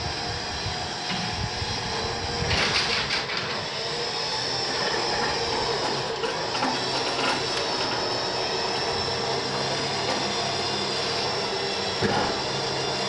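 9,000-pound Badland electric winch running steadily as it pulls the drag car up the ramp into the truck, with a few clanks about two and a half seconds in and one more near the end.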